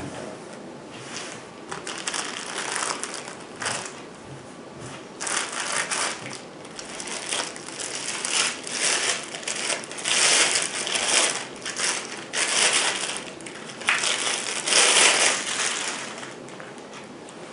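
Packaging crinkling and rustling in irregular bursts as it is handled and unwrapped, loudest in the second half.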